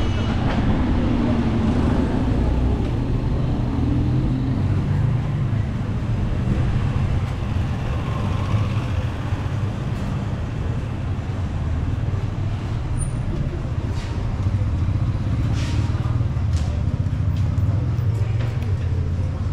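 Street traffic: a steady low rumble of vehicle engines, with a few brief sharp ticks in the second half.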